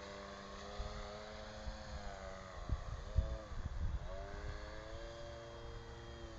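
MX-2 aerobatic RC airplane's motor and propeller running in flight, its pitch sliding down and back up about halfway through as it manoeuvres. Irregular low rumbles of wind buffet the microphone.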